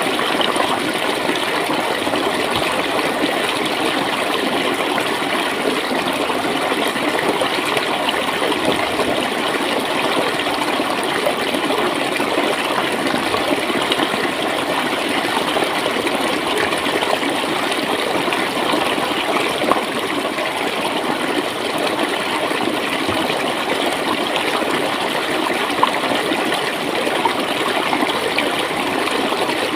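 Steady flowing water, a stream running and gurgling, with an even rush and small splashes.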